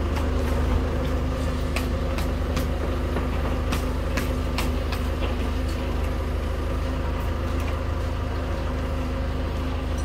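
Crane engine running steadily at idle while a timber beam hangs from its hook. Scattered sharp knocks of a wooden mallet driving timber joints together, mostly in the first half.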